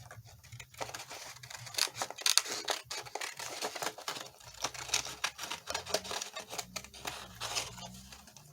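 Pencil scratching on paper in short, irregular strokes, with light paper rustling, as a paper template is traced around.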